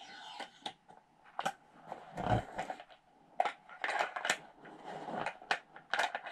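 Clicks and light knocks of an airsoft M4's barrel and hop-up unit being handled and fitted into the upper receiver, with a dull thump a little over two seconds in.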